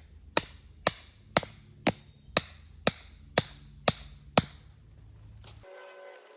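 A hand tool striking repeatedly: about ten sharp, evenly spaced blows, two a second, that stop about four and a half seconds in.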